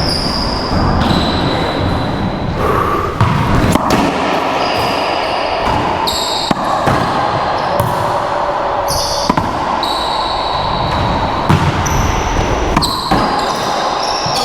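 Racquetball rally in an enclosed court: a sharp smack every second or two as racquets strike the ball and the ball hits the walls, echoing in the court, with short high squeaks of sneakers on the floor in between.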